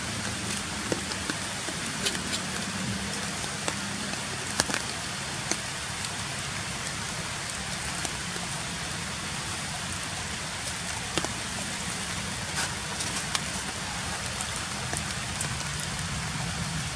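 Steady, even hiss with scattered light ticks and clicks.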